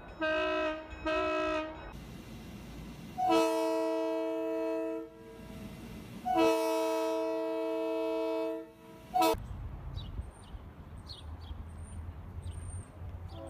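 Diesel locomotive air horn sounding a multi-note chord: two short blasts, then two long blasts and a short one, the opening of the grade-crossing signal. A low rumble follows after the horn stops.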